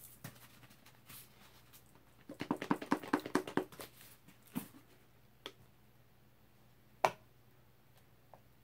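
Plastic paint squeeze bottles and cups being handled: a quick run of small crackling clicks about two seconds in, then a few single sharp clicks, the loudest near the end.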